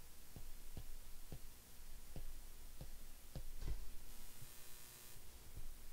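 Light irregular taps of a stylus on a tablet as numbers are handwritten, about one to two a second, with a brief hiss about four seconds in.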